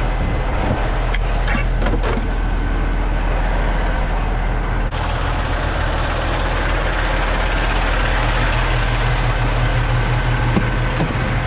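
Car hauler semi truck's diesel engine running steadily with the PTO engaged for the hydraulics, a constant low hum under a broad hiss, with a few light clicks about a second in and again near the end.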